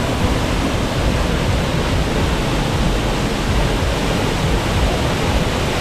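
Small mountain waterfall: a steady rush of falling and splashing water.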